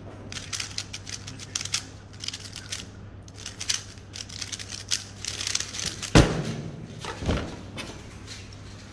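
A plastic 3x3 speed cube turned fast by hand, a quick run of clicking turns. About six seconds in, a loud thump as the cube is set down on the mat and the hands hit the stackmat timer to stop it, followed by a softer thud a second later.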